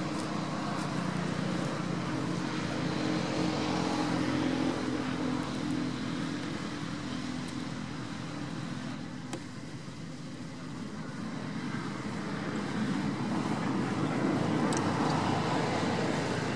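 Road traffic: motor vehicles running and passing, a steady engine hum that swells about four seconds in, eases off, and swells again near the end.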